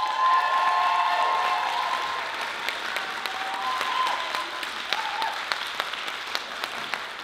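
Audience applauding, with high cheering whoops rising over the clapping in the first couple of seconds and again near the middle.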